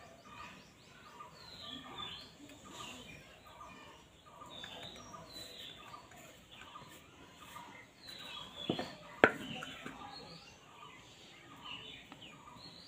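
Birds chirping over and over in the background, short repeated calls throughout. Two sharp knocks come about two-thirds of the way in.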